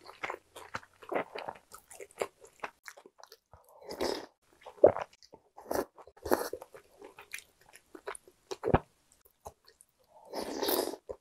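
Close-miked chewing and wet mouth sounds of a person eating, with scattered sharp clicks of a spoon against a ceramic bowl and a longer slurp of soup from the spoon near the end.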